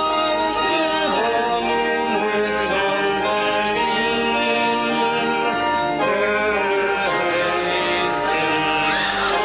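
Music: held instrumental notes, with a singing voice that rises and falls at times.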